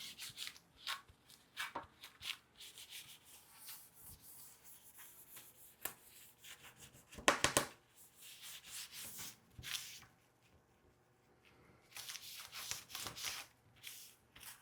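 Alcohol wipe being rubbed over a laptop's back case: scattered soft rubbing strokes, with a louder burst of wiping about seven seconds in, a short pause, and another spell of wiping near the end.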